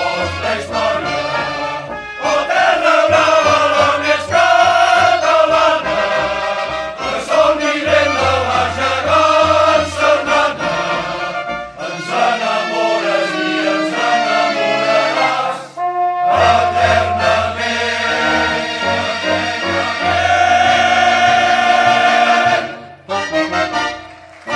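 Choir singing with instrumental accompaniment; the music drops away briefly near the end.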